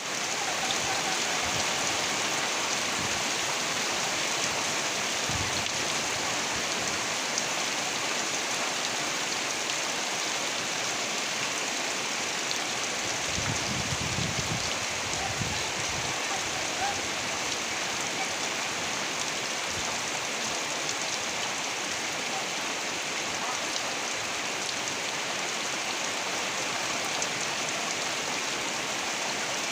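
Steady rain falling, an even hiss that holds unchanged, with a few faint low rumbles about halfway through.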